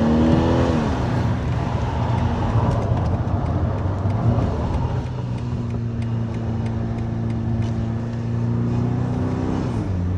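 BMW X3 30e plug-in hybrid driving with its windows open. Its drivetrain note falls in pitch in the first second, then road and wind noise take over, and a steady hum returns from about halfway until just before the end. A light 'dalreureu' rattle comes with the car shaking under braking; it is judged not to be a loose bolt rattling.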